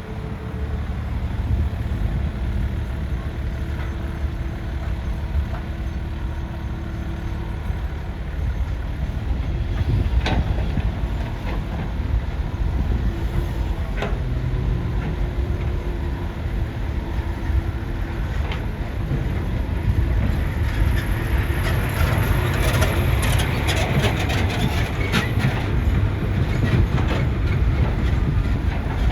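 Hydraulic excavator working: a steady machine drone with a few sharp knocks, then a busier stretch of clicking and scraping from about two-thirds of the way through as the machine digs.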